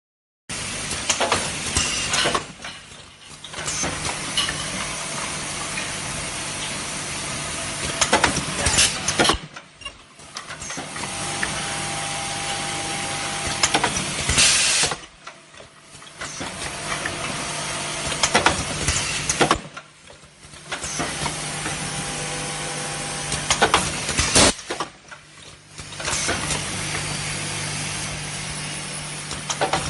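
Ultrasonic mask sealing machine running in the factory: a steady hiss over a low hum, in blocks a few seconds long that start and stop abruptly, with sharp clicks near the end of each block.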